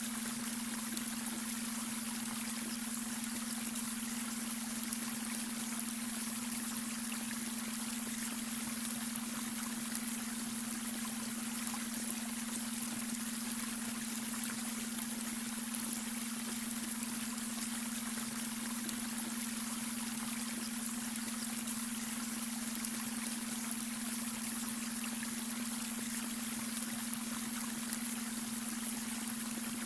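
A babbling brook, water running and trickling steadily, with a steady low hum-like tone held unchanging underneath: the beta brainwave tone mixed into the water sound.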